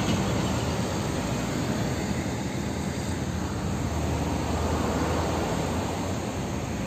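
Steady road and engine noise from inside a moving car, with a low rumble that swells a little midway.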